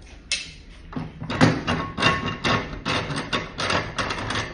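Metal bench vise being worked open after clamping a soft 3D-printed handlebar grip: an irregular run of sharp clacks and knocks, several a second, starting about a second in.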